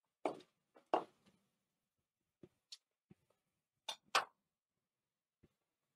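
A few short knocks and clatters at a cast-iron pot as the remaining chopped onions are tipped in: two louder clatters in the first second, a couple of light ticks, and a sharp double knock about four seconds in.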